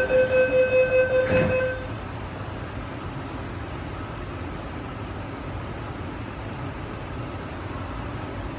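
An MTR R-Train's door-closing warning: rapid electronic beeping, about four pulses a second, that stops about two seconds in. After that the train car's steady low rumble.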